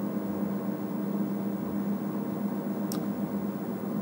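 Steady low machine hum over a faint hiss, with a single short click about three seconds in.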